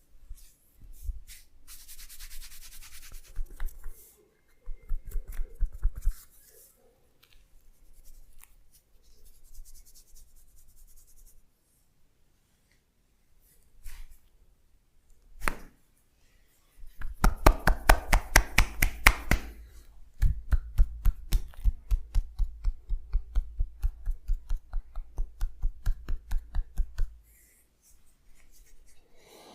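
Percussive massage strokes: rhythmic strikes on the body at about three to four a second, in long runs through the second half. Before them come softer rubbing and scattered taps, and one sharp click.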